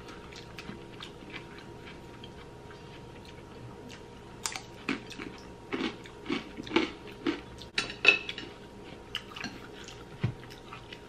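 Close-up eating sounds: chewing and mouth smacks, with chopsticks and spoons clicking against ceramic bowls. They are sparse at first and come thick and irregular from about four seconds in.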